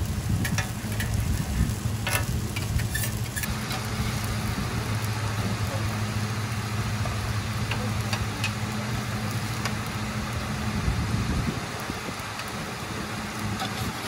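Seafood green-onion pancake sizzling as it fries on a hot griddle, with a few light clicks in the first few seconds. A steady low hum runs underneath and fades out about eleven seconds in.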